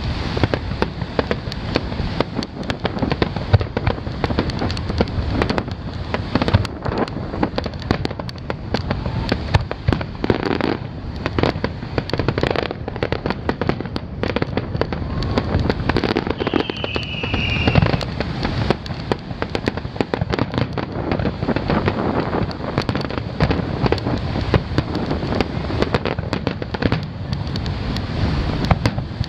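Aerial fireworks shells launching and bursting one after another, a dense run of sharp bangs and crackles with no let-up.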